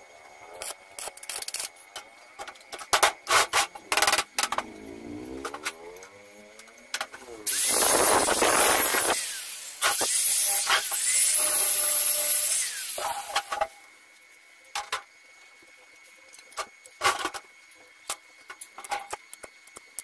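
Angle grinder spinning up and then grinding steel with an abrasive disc in two loud passes of a few seconds each, around the middle. Scattered light metal clinks and taps come before and after.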